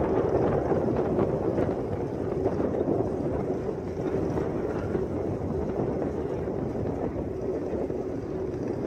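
Steady rushing of wind on the microphone aboard a moving ship, with a faint steady hum underneath.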